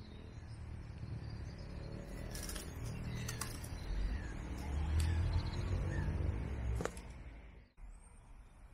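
Outdoor ambience: a low rumble of wind on the microphone, with small birds giving short falling chirps every second or so and a few sharp clicks. The sound cuts off abruptly about three quarters of the way through, and a quieter hush follows.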